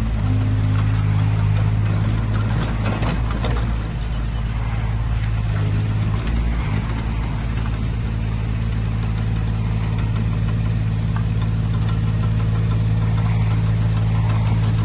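Perkins diesel engine of a JCB micro tracked excavator running steadily while the machine is worked, with a couple of short knocks about three seconds in and again after six seconds.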